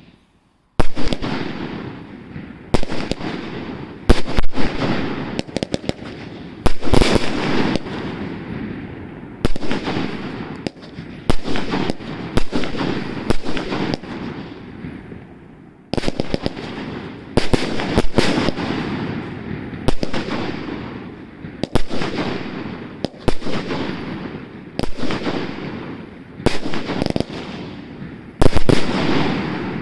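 Black Panther 'Galaxy Defender' firework going off: a steady series of loud bangs, roughly one every one to two seconds, each trailing off into a fading rumble and crackle.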